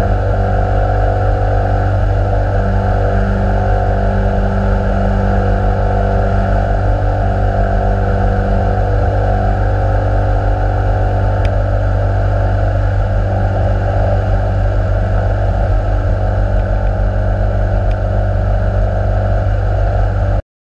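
Jabiru light sport aircraft's piston engine and propeller running steadily at takeoff power through the takeoff roll and climb-out, heard from inside the cockpit, until the sound cuts off suddenly just before the end.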